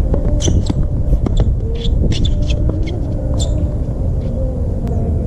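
Tennis rally on a hard court under a steady low rumble: several sharp racket-on-ball hits and shoe scuffs and squeaks at irregular spacing.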